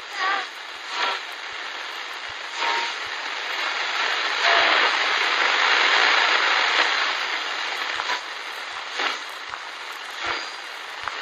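Subway train in motion: a rushing rumble that swells around the middle and eases off again, with a few brief squeals.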